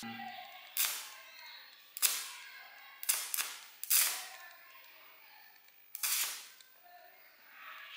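Electric arc crackling and snapping as the bare ends of the output leads from six 12 V solar panels wired in series, about 129 V DC, are touched together. There are about six sharp snaps over several seconds, each trailing off in a short sizzle.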